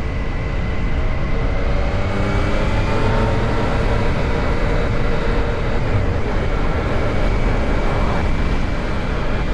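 Heavy wind noise buffeting a microphone inside a motorcycle helmet at about 50 mph, with the Yamaha MT-09's three-cylinder engine pulling underneath, its pitch rising slowly a couple of seconds in and then holding.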